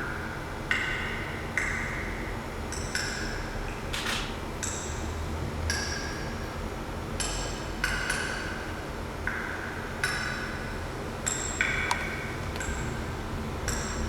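Ancient glacial ice popping and cracking, about 100,000 years old: a sharp click roughly once a second, each ringing briefly in a glassy ping, over a steady hiss. The pops are air bubbles bursting that were sealed in the ice under pressure.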